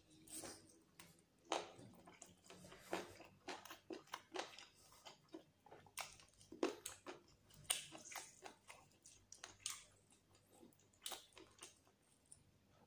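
Close-miked chewing of a mouthful of chicken curry and rice: irregular wet mouth clicks and smacks, several a second, with short pauses between them.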